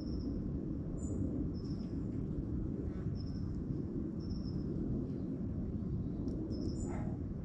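Outdoor field recording: a steady low rumble under small birds chirping, short high notes repeating every second or so. Near the end a lower call joins in briefly.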